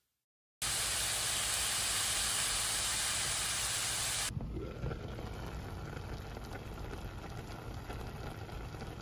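Bitter melon and shredded carrot stir-frying in a pot, a loud steady sizzle. About four seconds in it gives way to a quieter sizzle with a few small knocks as the mixture, now with egg, cooks on.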